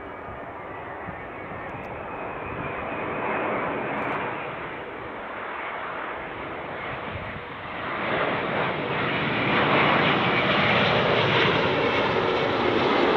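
Jet airliner on short final approach to land, its engine and rushing air noise building and growing much louder about eight seconds in as it comes close.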